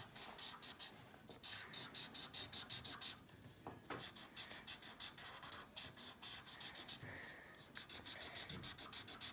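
Green Sharpie felt-tip marker scratching on paper in quick back-and-forth colouring strokes, several a second, coming faster near the end.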